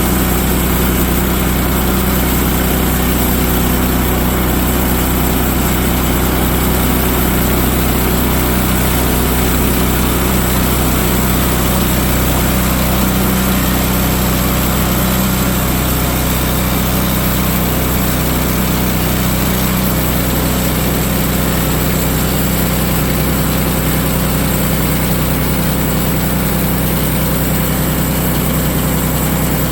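Woodland Mills HM130Max portable band sawmill's gasoline engine running steadily, driving the band blade.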